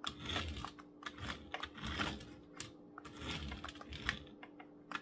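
Battery-powered toy RC mini truck's small electric motor and plastic gears whirring and clattering in short spurts, several times, as it is driven back and forth on a tabletop.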